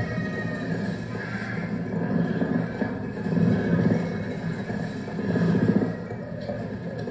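Layered cassette tape loops played on four Walkmans and mixed together: a dense, wavering low drone under higher warbling tones, swelling louder twice, about halfway and near the end.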